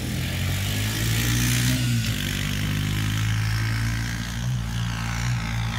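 Four-wheeler (ATV) engine running under throttle as it is ridden, its pitch fairly steady with a slight rise and fall about a second and a half in.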